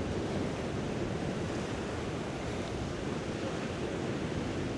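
Steady wash of sea surf on a rocky shore, with some wind.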